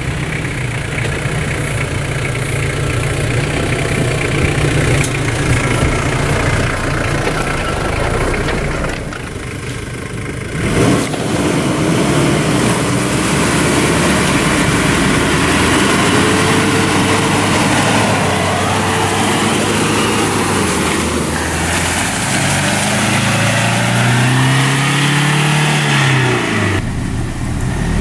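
Off-road 4x4 engines, an Isuzu Trooper's 3.1 turbodiesel among them, running under load through mud and ruts. The sound changes abruptly about ten seconds in, and later the engine revs up and down in long rising and falling sweeps.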